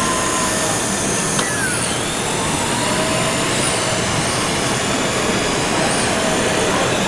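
Large-scale RC construction models at work: faint electric motor and hydraulic pump whines that rise and fall over a steady, noisy din.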